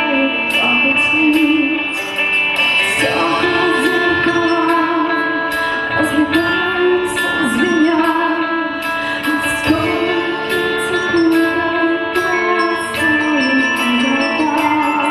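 A band playing live with drums, bass, keyboards and guitar: regular cymbal strikes over sustained chords and a wavering melody line, without pause.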